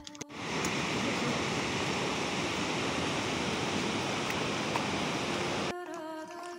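Rushing water of a fast mountain river, a steady even noise that starts suddenly just after the beginning and cuts off abruptly about a second before the end.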